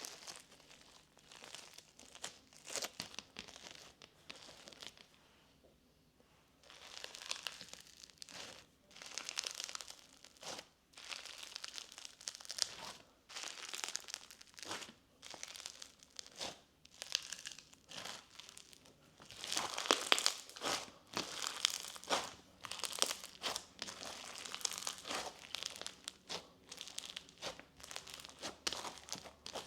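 Hands pressing and stretching a Bingsu slime full of large foam beads: irregular crackling and crinkling as the beads and trapped air pockets pop. There is a short lull about five to six seconds in, and the loudest stretch comes around twenty seconds in.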